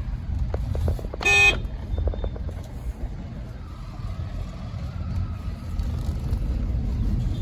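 Stop-and-go city traffic heard from inside a car: a steady low engine and road rumble, with one short, loud vehicle horn honk about a second in.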